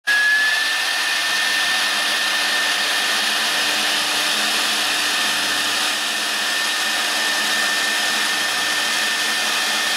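Horizontal side-drilling spindle of a 4-axis CNC router running: a steady high whine over a constant rushing hiss, the whine rising slightly in the first second as the spindle comes up to speed.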